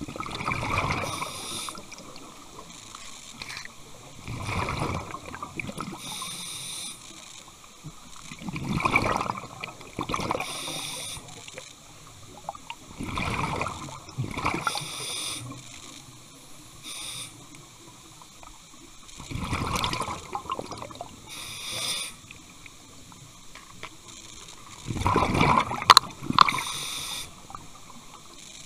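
Scuba diver breathing underwater through a demand regulator: a hiss on each inhale, then a rush of exhaled bubbles, about six slow breaths in turn.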